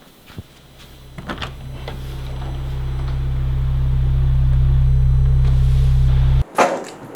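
A low electrical hum, a deep steady drone, follows a few small clicks. It swells over about four seconds, holds steady, and cuts off suddenly, followed by a sharp knock; the hum starts again at the very end.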